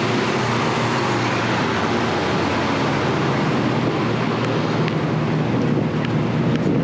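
Temporary power generator running loudly and steadily, a constant engine hum with a broad mechanical noise over it.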